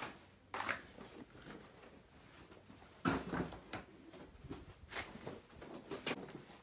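Scattered footsteps and rustling, with a louder thump about three seconds in.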